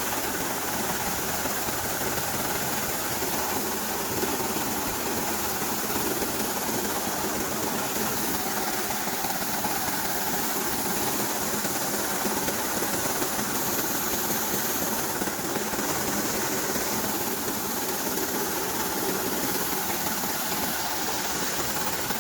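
Tractor-driven corn thresher (maize sheller) running steadily, a dense, even mechanical noise.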